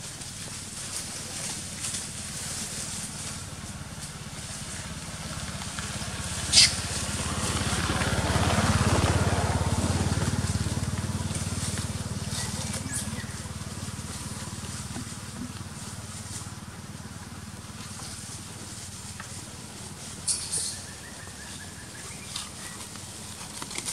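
Outdoor ambience with a steady low hum. A low rumble swells for several seconds and fades away, a sharp click comes about six and a half seconds in, and a few softer clicks come near the end.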